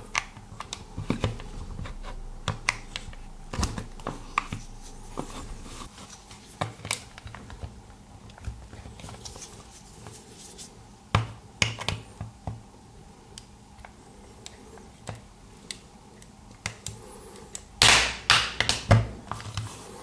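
Scattered clicks, taps and scrapes of a hard plastic remote-control case being handled and pried at its seam with a knife blade. A cluster of louder clicks comes near the end.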